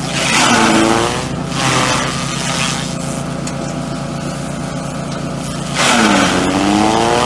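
Elephant-grass chopper (chaff cutter) driven by a small engine, running steadily. Twice, just after the start and about six seconds in, stalks fed into it give a loud chopping rush, and the engine's pitch sags under the load and then climbs back.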